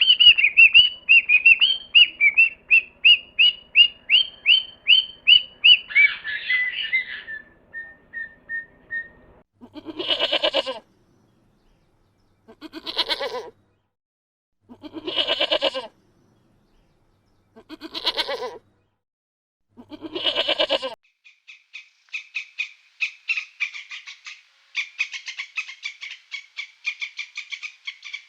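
A run of animal calls: first a fast series of high chirping bird calls, then five separate bleating calls about two and a half seconds apart, then a fast high trilling call.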